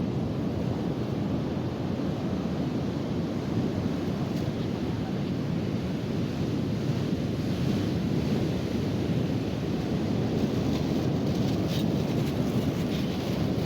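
Steady rumble of ocean surf breaking on a beach, mixed with wind buffeting the microphone.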